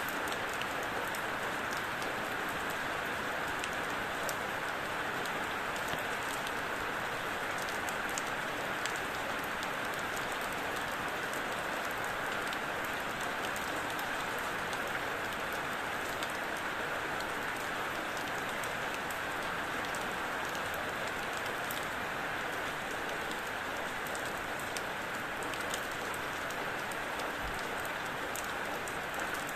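Steady rainfall, a continuous even hiss with many fine drop ticks scattered through it.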